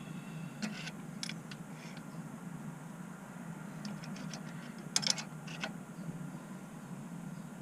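Scattered small metallic clicks and ticks from a brake-line flaring tool being worked as its screw presses the pipe end into a flare, with the loudest cluster about five seconds in, over a steady low hum.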